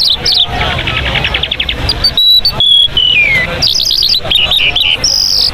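Mashadi jal songbird singing a varied song: rapid trills, clear whistled notes and a falling glide about three seconds in, ending on a high whistle.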